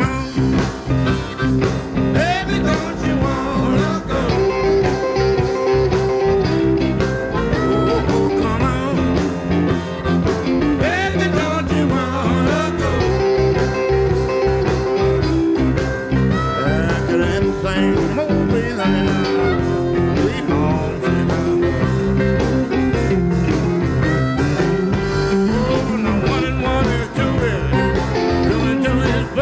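Live Chicago-style blues band playing a song: piano, electric guitar, bass, drums and harmonica, with bending lead lines over a steady rhythm section.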